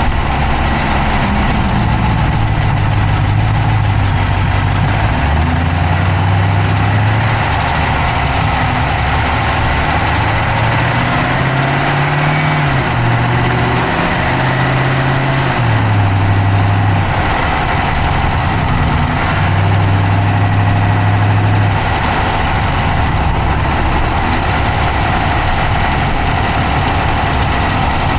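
Dodge Charger's Hemi V8 idling, heard close up in the engine bay, with a fast, steady clicking running over the engine note. The low engine tone shifts up and down in pitch in the middle stretch.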